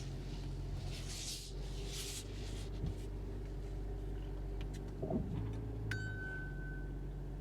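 BMW X3 M40i's turbocharged inline-six running steadily at low speed as the car is moved. There is a short hiss around one to two seconds in and a brief high beep about six seconds in.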